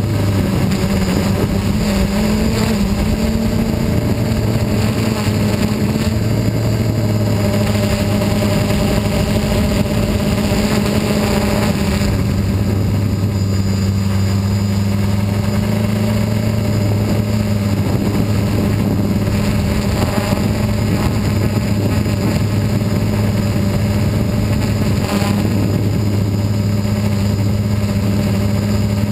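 FPV multirotor drone's electric motors and propellers buzzing steadily, heard from the onboard camera, the pitch shifting slightly as the throttle changes.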